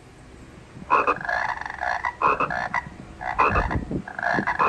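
Frog croaking: a series of rasping croaks, about one a second, starting about a second in, four in all.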